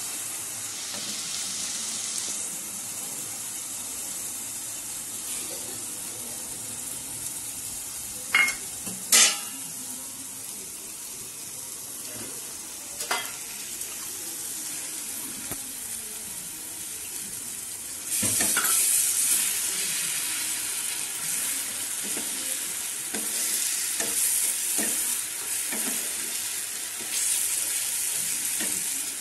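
A wet spice paste sizzling in hot oil in a non-stick pan, stirred and scraped with a wooden spatula. Two sharp knocks come about eight and nine seconds in. The sizzling grows louder about eighteen seconds in, as the stirring picks up.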